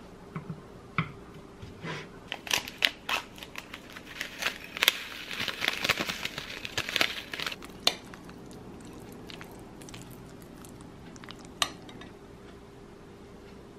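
Kitchen food-prep handling: metal chopsticks and a spoon clicking against a glass bowl, and a seasoning packet crinkling as it is emptied into the bowl. Most of the clicks and rustling come in the middle, with one more clink near the end, over a faint steady hum.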